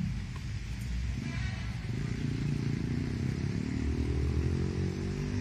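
An engine running, with a second engine note rising slowly in pitch from about two seconds in.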